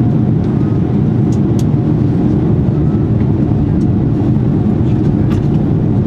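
Jet airliner cabin noise in flight on approach: a steady low roar of engines and airflow heard from inside the cabin, with a few faint ticks.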